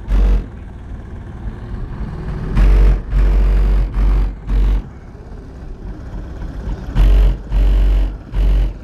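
Bass-heavy music played loud through a car audio system with two Kicker L7 15-inch subwoofers. Deep bass notes hit in short groups of two to four, with quieter stretches between them.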